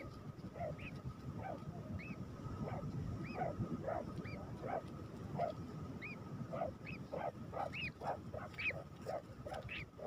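Nightjars calling at a ground nest on the sand: a steady run of short, squeaky calls that rise and fall, about one or two a second, at a higher and a lower pitch.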